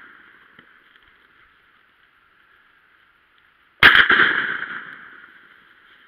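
A single shotgun shot about four seconds in: a sharp report that echoes and dies away over about two seconds. At the start, the echo of the previous shot is still fading.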